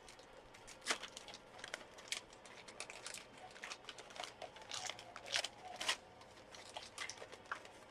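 Packaging being torn and unwrapped by hand: quiet, irregular crinkling and crackling of wrapping material, with a few sharper crackles.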